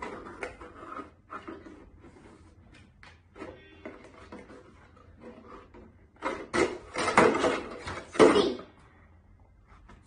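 Pencil scratching on cardboard while tracing around a plastic bottle, then about six seconds in, louder scraping and rustling of the cardboard being handled for a couple of seconds.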